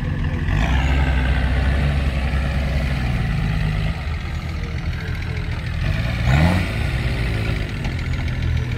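Off-road 4x4's engine working under load, then revving up with a rising pitch about six seconds in.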